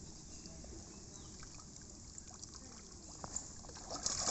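Faint water trickling and splashing around a cast net being gathered in shallow pond water, growing louder near the end as the wet net is lifted and water pours off it.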